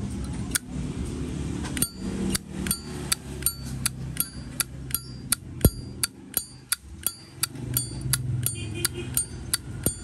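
Zippo Vintage 1937-style lighter's lid flicked open and snapped shut over and over: sharp metal clicks, about three a second, each with a short clear ring. This is the lighter's chime, which the seller has tuned for a pleasing sound.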